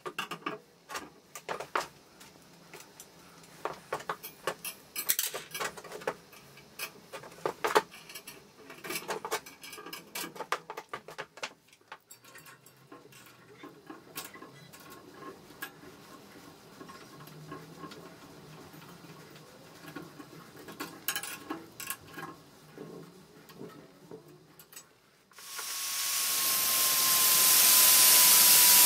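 Metal and glass parts clinking and knocking as they are handled, then sparser clicking from a ratchet wrench tightening a bolt. About 25 seconds in, an angle grinder starts grinding steel: a loud hiss with a steady whine, the loudest sound.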